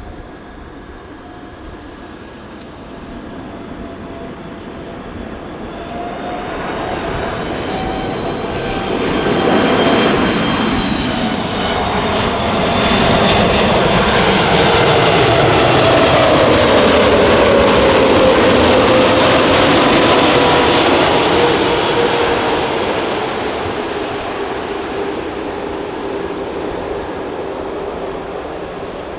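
Boeing 747-8F freighter's four GEnx jet engines passing low overhead. The noise builds to a loud peak about halfway through and then fades, with its whine sliding down in pitch as the aircraft goes by.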